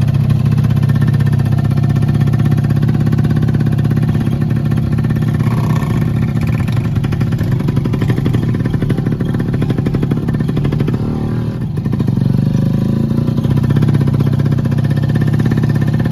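Motorcycle engine of a tricycle (motorcycle with sidecar) running steadily under way, briefly easing off about twelve seconds in before picking up again.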